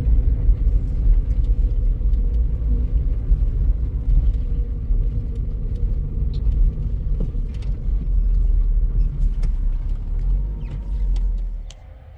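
Car driving: a steady low engine and road rumble that drops away abruptly near the end.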